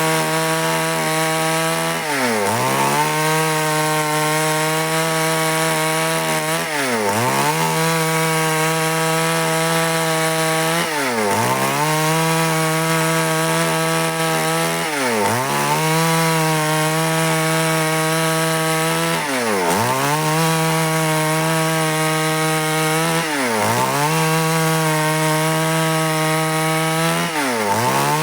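Stihl chainsaw running at high revs while ripping lengthwise through wood. Its speed briefly drops and picks back up about every four seconds, seven times.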